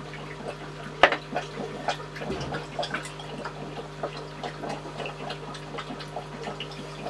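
Water splashing and dripping as a hand works in an aquarium tank, with small clicks and knocks from items set down, the sharpest about a second in. A steady low hum runs underneath.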